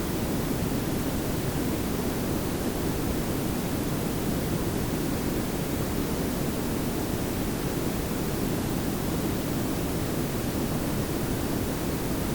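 Synthetic pink and brown noise layered together: a steady, even hiss with a heavy low rumble, unchanging throughout.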